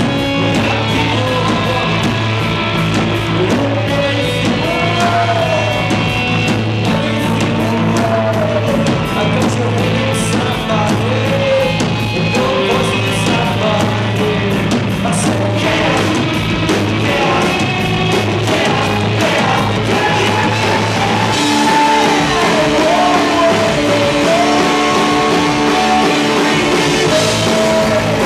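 Live rock band playing loud: electric guitars, electric bass and a drum kit, with a sung vocal line over them. The bass part changes about three-quarters of the way through.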